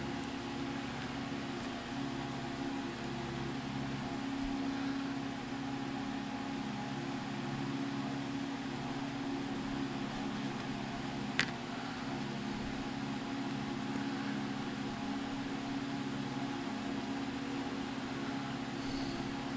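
A steady mechanical hum holding several fixed low pitches, with one sharp click about halfway through.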